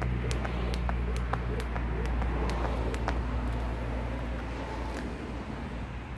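Jump rope slapping the paving stones in a steady rhythm, about three strikes a second, stopping about three seconds in. A passing vehicle's low rumble runs underneath.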